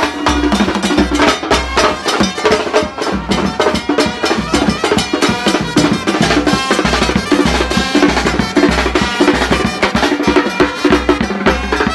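A live street brass band playing: a big bass drum and snare-type drums beat a fast, dense rhythm while trumpets play a melody over it.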